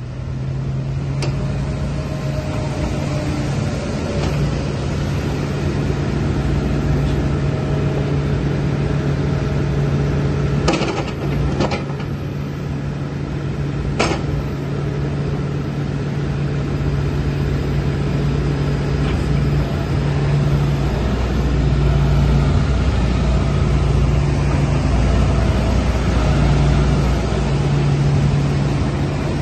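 Hitachi ZX225USRLC-3 excavator's diesel engine running steadily with a low hum, with a few short sharp knocks partway through.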